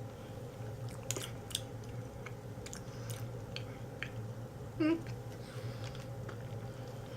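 Scattered small clicks and rustles of a sachet of Spatone iron-enriched spring water being handled and drunk, with one brief throaty sound about five seconds in. A steady low hum runs underneath.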